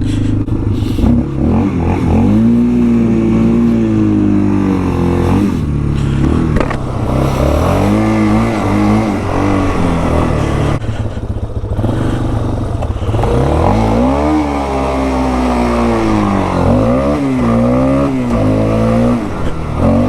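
2001 Yamaha Warrior 350 ATV's single-cylinder four-stroke engine on its stock exhaust, revving up and dropping back again and again, its pitch climbing with each burst of throttle. It runs on a freshly cleaned carburetor.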